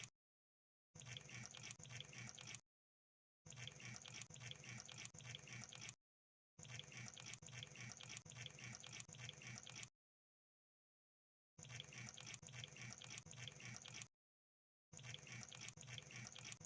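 Crab sound effect: rapid, faint clicking and crackling in bursts of two to three seconds, five times, each cut off into dead silence.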